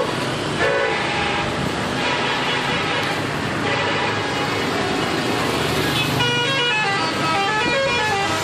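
Telolet horns of Pandawa 87 buses, the multi-tone musical air horns of Indonesian buses, playing short stepped melodies. One comes about a second in and a louder one from about six seconds in, over steady road-traffic noise.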